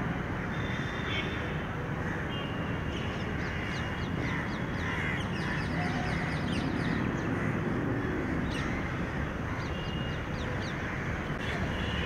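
Crows cawing over a steady low background rumble.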